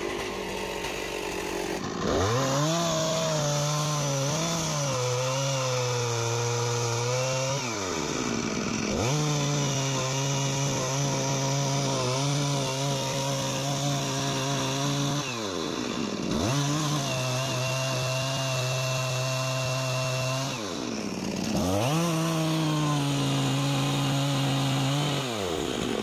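Stihl MS 460 two-stroke chainsaw cutting into the base of a thick jackfruit trunk. It idles at first, then revs to full throttle four times in the cut, each run lasting about four to six seconds, and drops back to idle between them.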